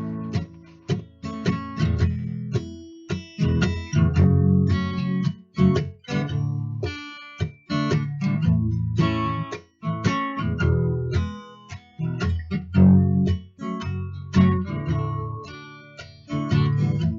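Background music: acoustic guitar played with repeated strummed and plucked chords.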